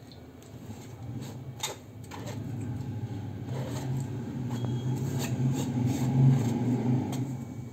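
A steel plate knocks and scrapes against a steel bowl as boiled, chopped banana blossom is pushed off it by hand. Under this runs a low droning hum that swells to its loudest about six seconds in, then eases off.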